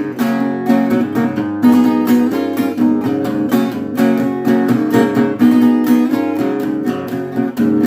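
Instrumental break in a song: strummed acoustic guitar playing chords in a steady rhythm, with no singing.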